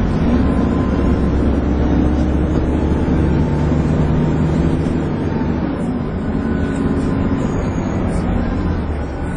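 Dennis Trident 2 double-decker bus driving, its diesel engine running with a heavy low rumble and a whine that rises and falls as it pulls away and eases off. The whine is the vacuum-cleaner-like 'hoover' sound the bus is known for.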